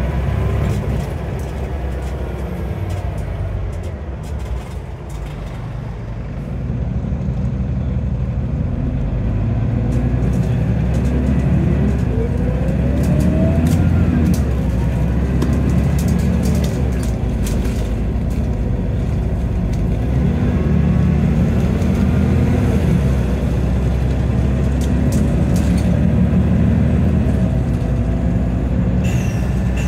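Scania DC9 9-litre diesel engine and ZF Ecomat 5-speed automatic gearbox of a Scania N94UB OmniCity bus, heard from inside the passenger saloon as the bus drives along. It pulls harder from about six seconds in, with a whine rising in pitch around twelve seconds.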